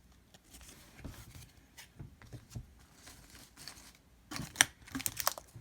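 Hockey trading cards being handled and flipped through: faint rustles and ticks, then a quicker flurry of sharp card clicks near the end.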